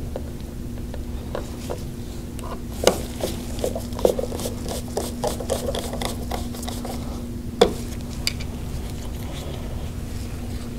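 Screwdriver turning a cover screw into the housing of a Graco Reactor E-10 proportioner, giving scattered small metal scrapes and clicks with one sharper click about seven and a half seconds in. A steady low hum runs underneath.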